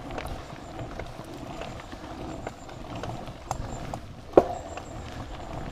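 Mountain bikes rolling over a dirt trail: tyre noise with irregular rattles, clicks and knocks from the bike and chain, one sharp knock loudest about three-quarters of the way through.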